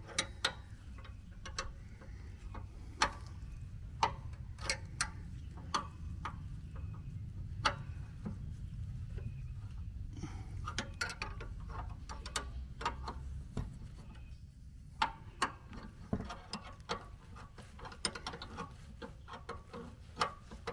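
Steel wrench clicking and clinking against a nut on a riding lawnmower's steering linkage as it is turned loose in short strokes. The clicks are sharp and irregular, about one every half second to a second, over a faint low rumble.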